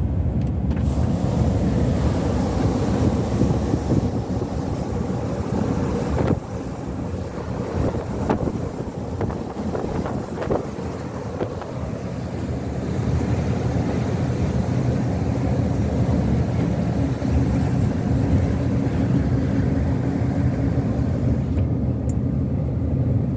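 Steady drone of a road vehicle driving at speed, heard from inside the cab: engine and tyre noise with wind rushing past. It eases off a little from about six seconds in and builds back by about thirteen seconds.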